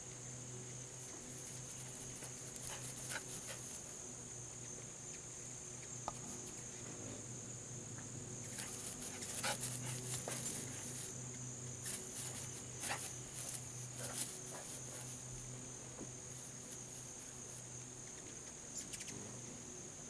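Steady high chorus of crickets and other insects, with clusters of short, sharp dog sounds, the loudest a little under halfway through and again around two thirds of the way in.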